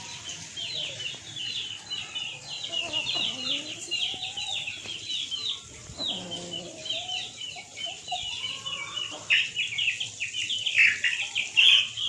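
Poultry-yard birdsong: constant rapid high chirping of small birds, with a few lower chicken clucks and calls in the middle. The chirping grows denser and louder in the last few seconds.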